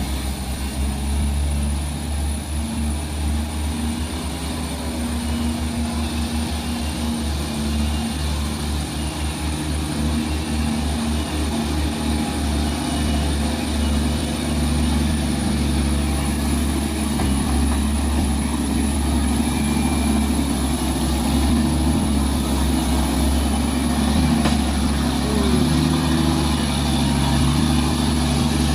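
Heavy diesel truck engine running steadily under load, a low drone that pulses unevenly at first and then holds, with a thin steady high whine above it.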